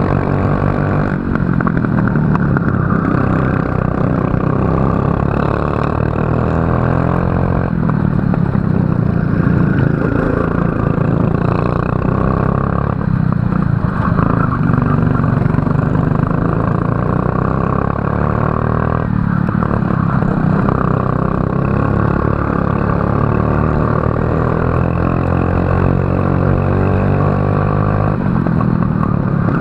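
Racing kart engine running hard, its pitch climbing as it accelerates and dropping sharply several times before climbing again.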